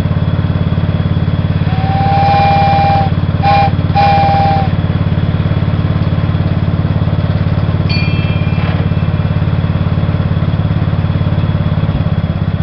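Small engine of a homemade trackless train running steadily, with three horn toots about two seconds in: long, short, long. A brief high-pitched ring follows about eight seconds in.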